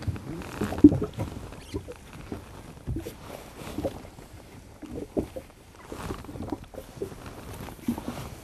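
Soft, irregular rustles and small knocks of gloved hands and jacket fabric as braided line is wrapped in half hitches around a leader.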